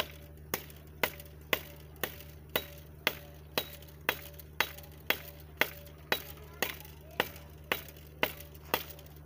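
A small knife hacking at the base of a tree branch, a sharp knock about twice a second in a steady rhythm. The wood is too strong to give way yet.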